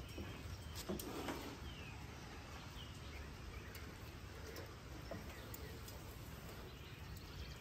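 Faint outdoor ambience with a few short bird chirps. A few light clicks and knocks in the first second or so as a thermometer wire and brisket are handled on the metal grill grate.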